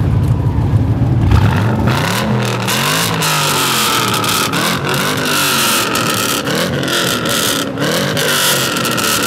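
Pontiac GTO's 6.0-litre LS2 V8 exhaust, with the catalytic converters still fitted: a low idle rumble for about the first second, then the engine is revved again and again, the pitch rising and falling with a loud screaming rasp.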